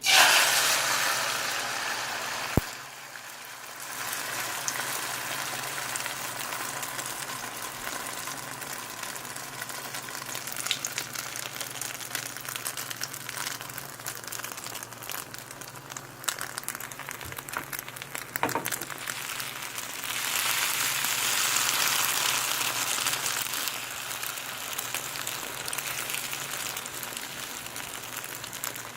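Eggs frying in hot fat in a pan: a steady crackling sizzle with constant small pops. It starts loud and sharp, dips for about a second around three seconds in, and swells again about twenty seconds in.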